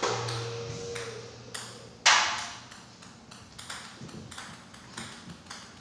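Table tennis balls knocking and clicking: a sharp knock at the start, a louder ringing one about two seconds in, then lighter scattered taps. A steady electric hum stops about a second in.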